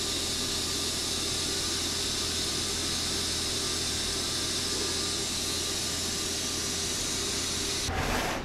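TIG welding arc running steadily, a constant hiss over a low buzz, with the pulse frequency set to 60 Hz. The arc cuts off about 8 seconds in, followed by a brief rush of noise.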